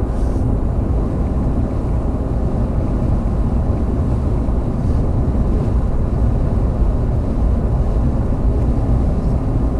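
Moving vehicle: steady low engine and road rumble with no change in pitch.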